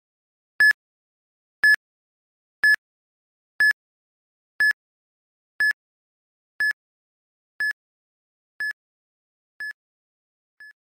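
Quiz countdown timer beeping once a second: short, high, identical electronic beeps that grow fainter one by one, with a last faint blip near the end as the time runs out.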